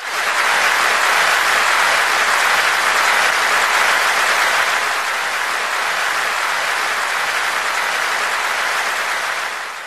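Audience applauding steadily; the clapping cuts in suddenly and fades out near the end.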